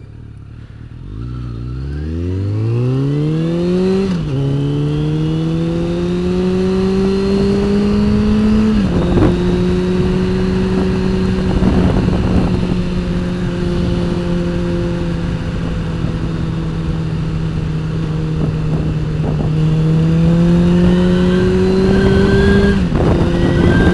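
Motorcycle engine pulling away from a stop: its pitch climbs, drops at an upshift about four seconds in, climbs again to a second upshift near nine seconds, then holds at a steady cruise before rising to a third shift near the end. Wind and road noise run underneath.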